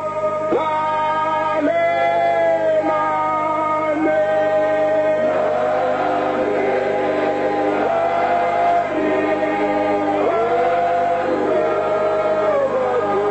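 A man sings a Zulu hymn in long held notes, and about five seconds in many more voices join him in a choir.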